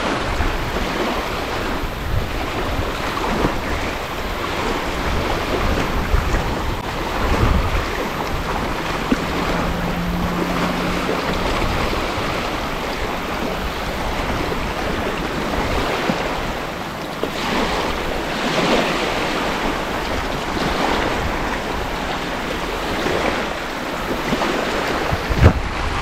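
Wind buffeting the microphone over small lake waves washing onto a sand beach, a steady rushing noise.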